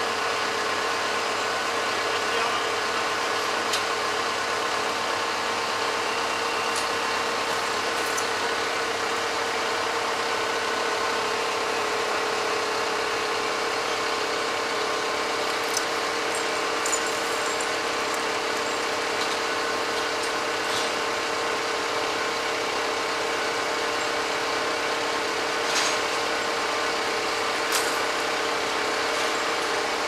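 Truck engine running steadily to drive the truck-mounted loader crane's hydraulics, with a steady whine over it. A few short, light knocks come in the second half.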